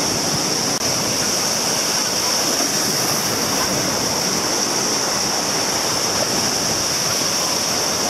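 Black Sea surf: small waves breaking and washing up a sandy beach in a steady rushing wash.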